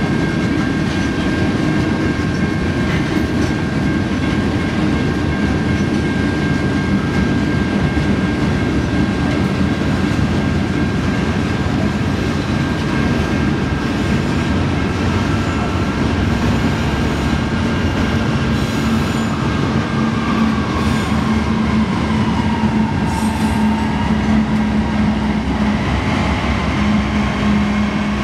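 Empty open-top hopper cars of a freight train rolling past, the wheels rumbling steadily on the rails with a thin wheel squeal that wavers in pitch in the second half. Toward the end a low droning hum grows as the train's rear pusher diesel locomotives come by.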